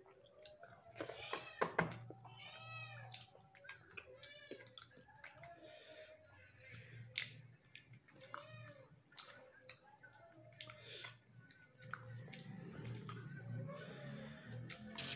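Faint, repeated high-pitched meow-like cries, each rising and falling, coming about once a second, over small clicks of food being handled on a steel plate.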